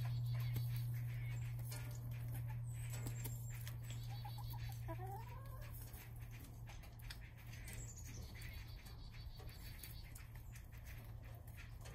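Hens pecking at a tray of sprouted wheat grass: many soft pecking clicks, and a short rising hen call about four to five seconds in. A steady low hum runs underneath and fades a little after the first few seconds.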